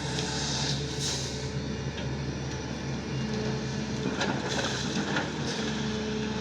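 Sany excavator's diesel engine running steadily, with a higher steady tone that comes and goes and two short bursts of noise, one about half a second in and a longer one from about four seconds in.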